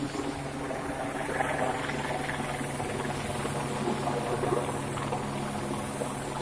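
Team cars driving past on a wet road, tyres hissing through standing water, under a steady low hum.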